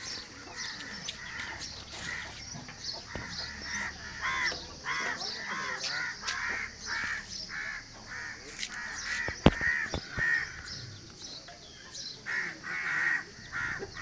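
Crows cawing over and over, many short harsh calls following one another, with a single sharp knock about nine and a half seconds in.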